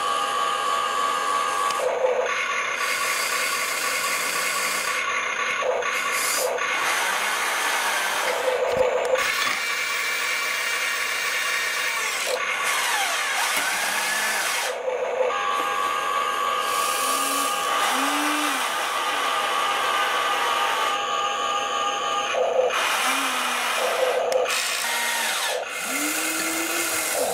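Electric gear motors of a Huina 1593 RC excavator whining as it works its boom, arm and grapple claw. The tone shifts abruptly every few seconds as different motions start and stop.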